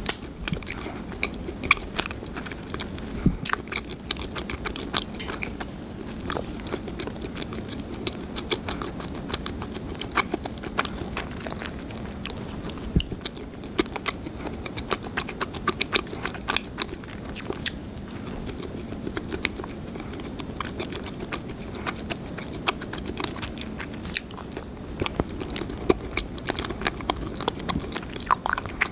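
Close-miked biting and chewing of garlic salt bread, with many small crisp crackling clicks from the crust throughout.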